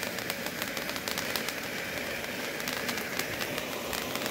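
Small ground firework fountain (volcano) burning: a steady hiss of spraying sparks with fine crackling all through.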